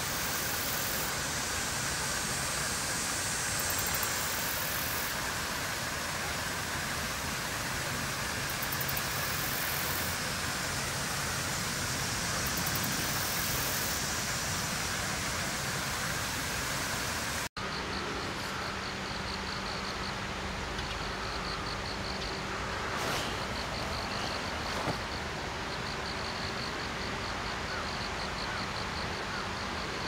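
Steady outdoor background hiss. It breaks off sharply about halfway through and comes back as a quieter ambience, with a faint, rapidly repeating high chirp and a low steady hum.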